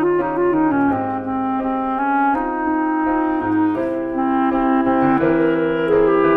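A clarinet plays a slow, legato melody of held notes over a sustained piano chord accompaniment.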